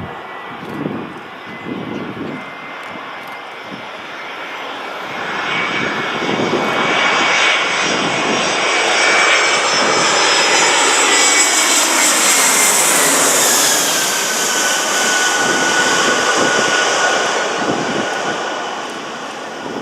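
Jet airliner taking off at full power and passing close by: the engine noise builds, peaks about two-thirds of the way through and then eases off, with its high whine dropping in pitch as the aircraft goes past.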